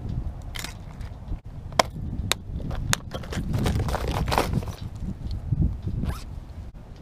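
A plastic tackle box being handled and snapped shut: a few sharp clicks about two to three seconds in, with rustling and scraping around them.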